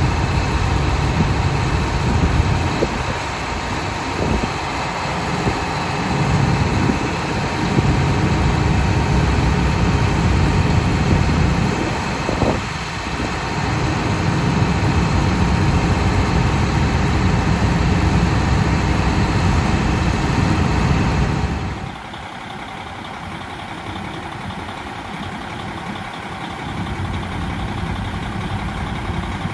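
KiHa 183 series diesel railcar standing with its engines idling: a steady low rumble with faint steady whines above it, partly from a unit taken for the onboard generator. About 22 seconds in it suddenly becomes quieter and duller.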